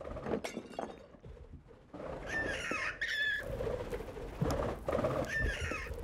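Shrill, bird-like screeching calls from a feathered creature, in two bouts, about two seconds in and again near the end, over knocks and rustling.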